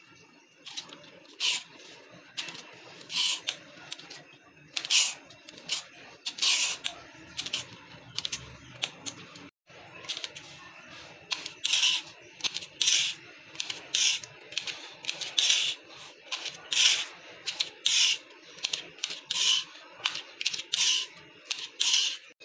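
Scissors snipping through fresh okra pods, one cut after another at about one to two a second, each a short crisp snip.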